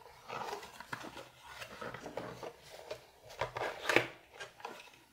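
Hands handling a Winsor & Newton Cotman plastic travel watercolour palette and its cardboard box on a wooden tabletop: soft rubbing and rustling with small clicks, then a few sharper plastic knocks and clicks about three and a half seconds in.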